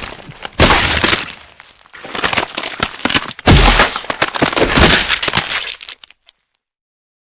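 Sound-effect crashes of breaking glass and debris: a sharp smash about half a second in, then a heavier smash with a deep thud at about three and a half seconds, each trailing off into crackling, tinkling fragments. It stops about six seconds in, followed by silence.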